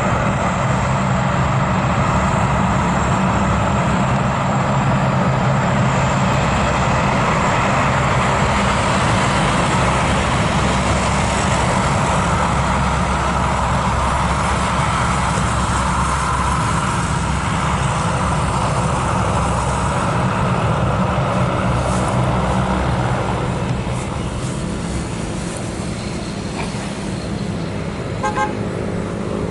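Lockheed C-130 Hercules turboprop engines droning steadily with spinning propellers as the aircraft taxis, over a broad rush of jet engine noise. The sound eases a little near the end.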